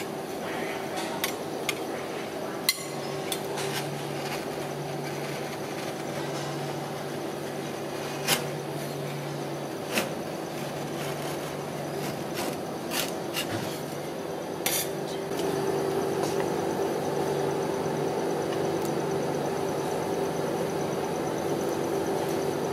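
Metal spatulas scraping and tapping on the steel cold plate of a rolled ice cream machine, giving scattered sharp clicks and clinks. Under them runs a steady low hum from the machine's refrigeration unit, which gets a little louder about two-thirds of the way through.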